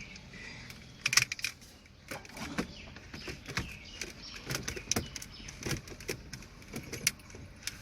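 Irregular light clicks and knocks from hard parts and tools being handled at the car's dashboard.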